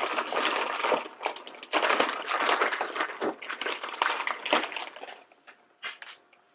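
Plastic blind-bag packets crinkling and rustling as hands rummage through a bin of them. It dies down to a few light clicks and taps after about four and a half seconds.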